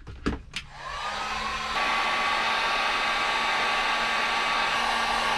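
Heat gun starting up and blowing steadily, shrinking heat-shrink tubing over a freshly crimped ring terminal on 6-gauge cable. Its fan whine rises as it spins up about a second in, and it gets louder just under two seconds in.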